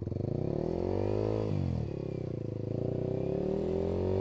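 Yamaha R15's single-cylinder engine revved in two pulls while the bike is bogged in deep mud and being walked out. The revs rise, fall off sharply about one and a half seconds in, then climb again and hold.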